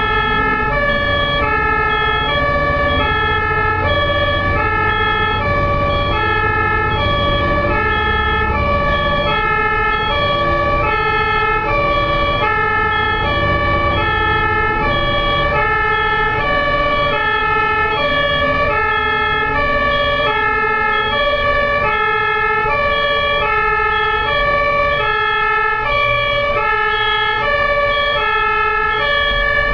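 Japanese ambulance's two-tone siren, alternating steadily between a high and a low note about every half-second, over the low rumble of road traffic.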